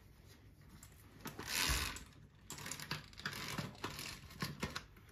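Light clicks and taps of small objects being handled, with a short rustling swish about one and a half seconds in.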